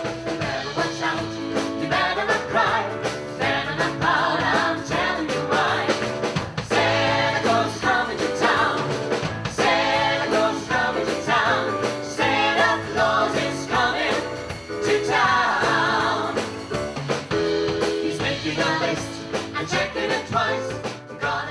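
Singing with instrumental accompaniment, a gospel-style Christmas song performed on stage.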